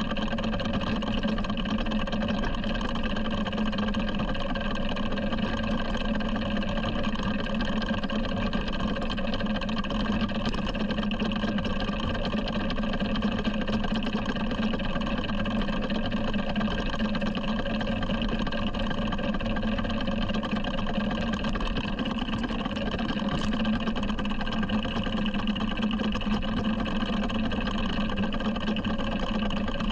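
7¼ inch gauge miniature locomotive running steadily along the track, a continuous even drone with no change in pace.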